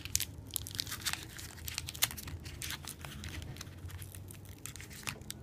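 Clear plastic wrap crinkling and crackling as it is handled around a foam-sleeved bundle, with irregular small crackles and one sharper crackle about two seconds in.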